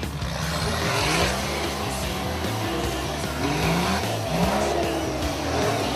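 Toyota HZJ75 LandCruiser's engine revving in several short rising bursts, with background music playing alongside.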